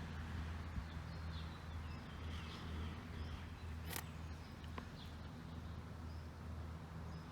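Birds chirping now and then over a steady low hum, with one sharp click about four seconds in.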